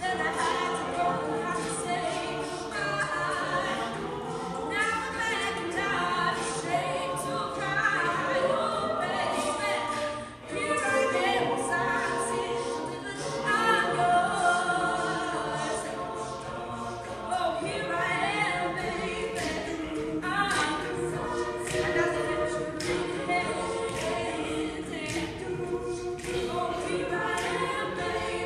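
Mixed-voice a cappella group of about a dozen singers performing a song in several-part harmony, with a brief drop in loudness about ten seconds in.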